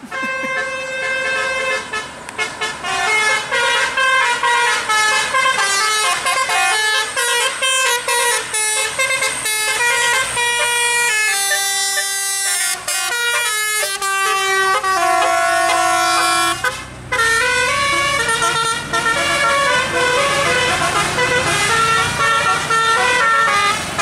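Basuri telolet horn playing a long multi-note tune: a run of loud horn tones stepping up and down in pitch, with some gliding notes and a short break about 17 seconds in.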